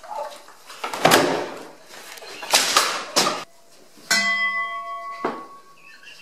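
Several sharp knocks, then about four seconds in a metal vase is struck and rings with several clear steady tones that fade over about two seconds. Another knock comes near the end of the ringing.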